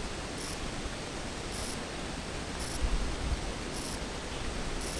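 Steady hiss of background noise with a low rumble underneath, and a faint short high-pitched tick about once a second.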